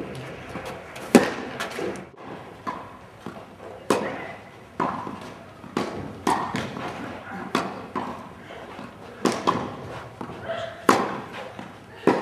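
Tennis rally: rackets striking the ball, with softer knocks of the ball bouncing between them. The sharp hits come every one to three seconds, the loudest about a second in and near the end.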